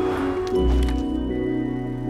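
A short musical title jingle: a whoosh, then a deep bass hit about half a second in, under held chiming tones that ring on.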